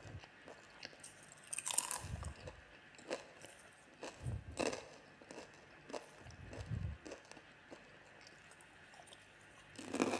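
Popcorn crunching in irregular, crisp crunches every second or two, with a few soft low thuds in between.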